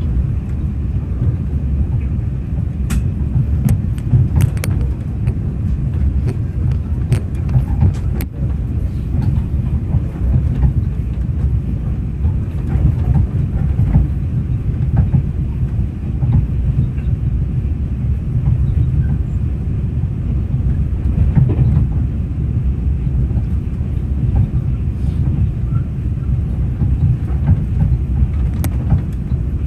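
Steady low rumble of a vehicle running, with scattered light clicks.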